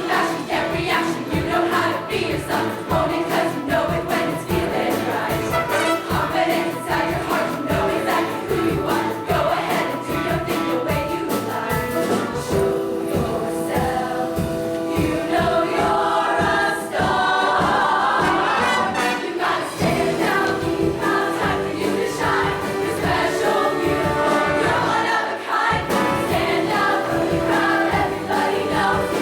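Music: a show choir singing in harmony over band accompaniment with a steady beat.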